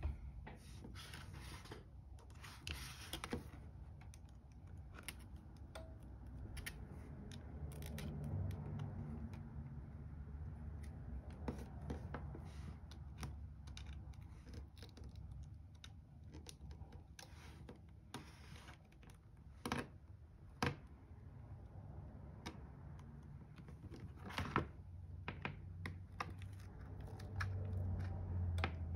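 Scattered light clicks, taps and scraping from a metal pry tool and fingers working the shattered glass of an iPad Air screen, with a few sharper clicks along the way.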